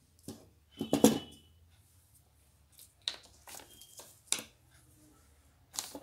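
Terracotta clay pot and small paint bottles knocked and set down on a table: a series of knocks and clinks, the loudest about a second in with a brief ring, then several lighter clicks.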